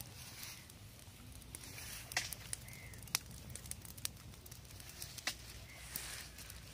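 Small open fire of dry sticks and twigs crackling, with a few sharp pops about a second apart.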